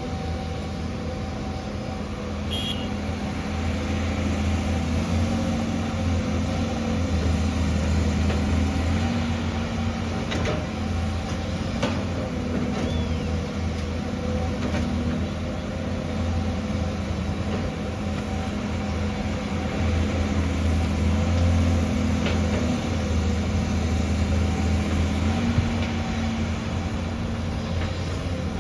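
LiuGong 930E excavator's diesel engine running with a steady hydraulic whine, its level rising and falling twice as the machine works, with a few light knocks.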